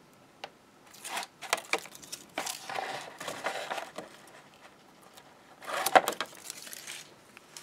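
Backing strips being peeled off double-sided tape on a white card panel, with crinkly rustling of paper and card as it is handled. Irregular crackles come in a run over the first few seconds, and the loudest crackle comes about six seconds in.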